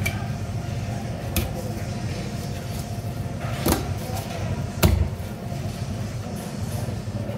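Knife and cut halibut pieces knocking on a plastic cutting board during portioning: three short knocks, the loudest, with a dull thud, about five seconds in, over a steady low background hum.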